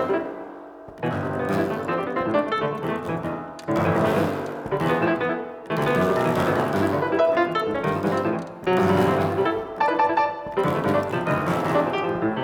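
Solo piano playing: dense clusters of notes struck every second or two and left to ring, in a free-flowing passage.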